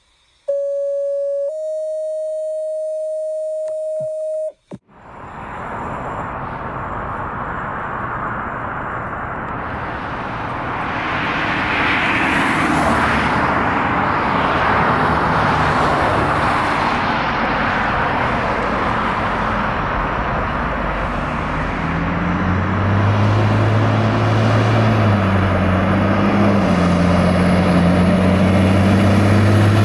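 A short two-note electronic tone, then steady roadway noise as a fire rescue engine approaches with its lights on. About two-thirds of the way through, the truck's diesel engine drone grows louder, with a faint high whine above it.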